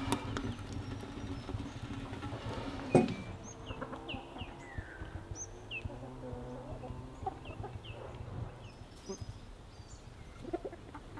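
Domestic chickens clucking quietly as they forage, with small birds chirping high and briefly now and then. A single sharp knock about three seconds in.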